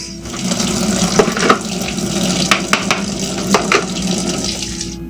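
Kitchen tap running steadily as the coffee maker's filter basket is rinsed under it, with several sharp knocks of the basket against the sink. The water shuts off near the end.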